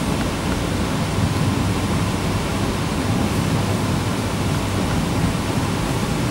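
Steady rushing rumble of a moving TrenItalia passenger train, heard from inside the carriage: running noise of wheels on rails and air past the body, with no distinct clicks or pitch changes.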